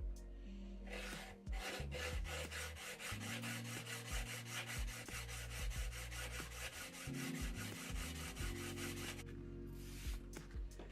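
Steel woodworking chisel rubbed back and forth on a diamond sharpening plate in quick even strokes, about four or five a second, during sharpening; the strokes stop about nine seconds in. Background music plays underneath.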